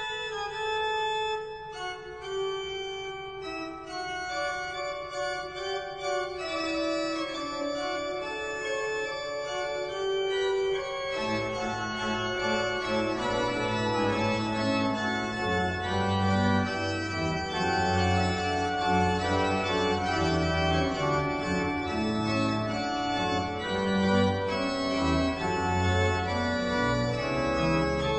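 Organ music in slow, held chords; deep bass notes come in about eleven seconds in and the music grows fuller and a little louder.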